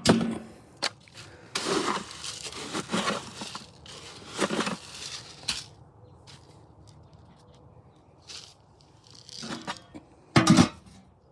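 Several short bursts of rustling and crunching, louder in the first half, then a short, loud pitched sound near the end.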